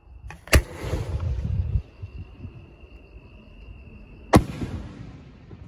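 A 5-inch aerial firework shell fired from a mortar: a sharp launch report about half a second in, then the shell bursting with a second sharp bang about four seconds later, each echoing briefly. Crickets trill steadily underneath.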